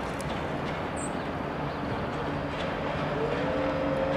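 Diesel-electric locomotives of a CSX freight train, an AC44CW and an SD70MAC, running as the train approaches, growing steadily louder. A steady whine rises and settles near the end.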